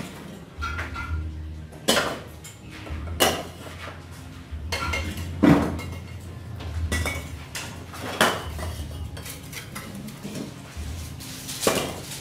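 Bricklayer's steel trowel working mortar onto hollow clay bricks: about six sharp knocks and clinks, a second or two apart, as the bricks are tapped down and the mortar is scraped and spread.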